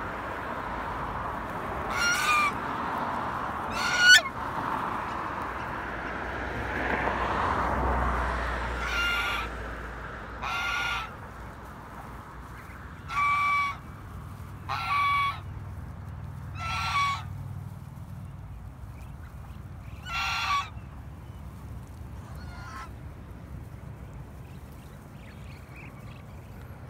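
Domestic swan goose (white Chinese goose) honking: about nine loud single honks, each under a second long, spaced one to three seconds apart, with a rushing noise under the first few. The honks stop a few seconds before the end.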